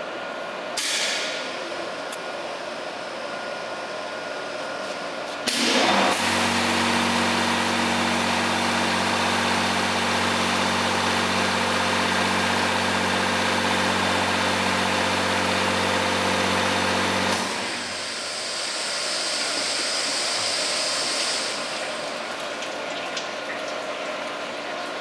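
Commercial high-pressure bottle washer for 5-gallon water jugs running a wash cycle: its pump comes on suddenly with a steady hum and a dense spray hiss, runs for about twelve seconds and cuts off. A quieter, higher hiss follows for a few seconds.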